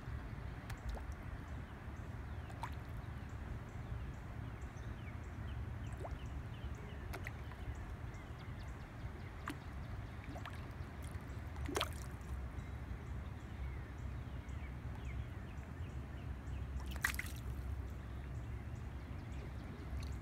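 Scattered small water drips and light splashes at the surface, with two louder splashes about twelve and seventeen seconds in, over a steady low rumble.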